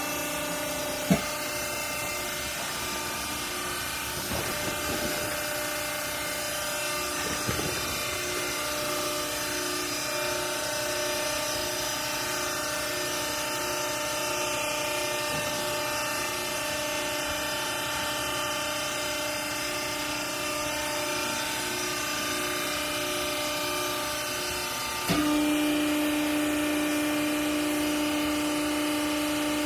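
Hydraulic power unit of a double-chamber clothing baler running with a steady machine whine, with a sharp click about a second in. Near the end the sound jumps louder and a stronger steady hum sets in.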